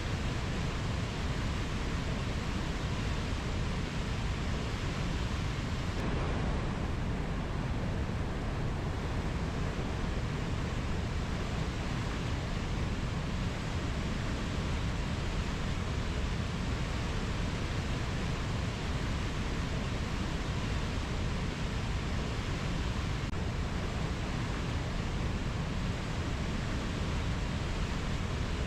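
Steady rushing rainforest ambience: an even, unbroken hiss with the most weight in the low end, and no bird, frog or insect calls standing out.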